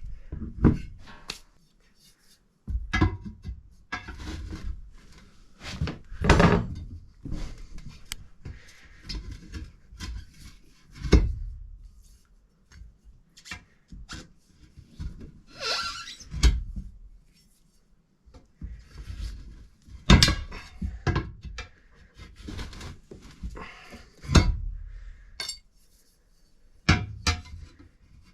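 Irregular thunks and metallic clanks from tools and metal parts being handled and set down, with short clattering spells between quiet gaps.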